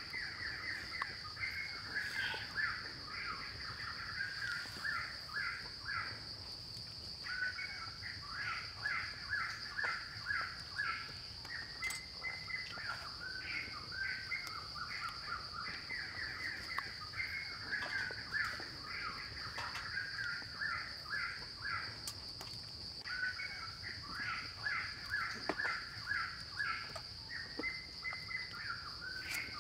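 A steady high-pitched insect drone with a bird's rapid chattering calls on top, coming in runs of a few seconds with short pauses between them.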